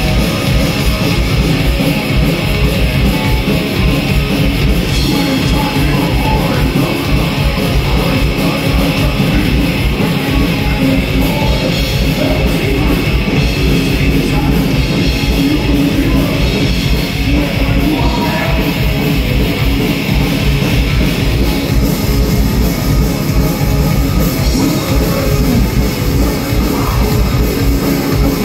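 Heavy metal band playing live at full volume: distorted electric guitar and bass over drums with rapid, even kick-drum strokes.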